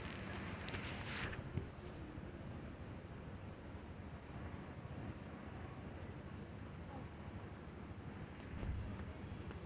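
Crickets trilling: a high, steady trill in runs of about a second, broken by short pauses.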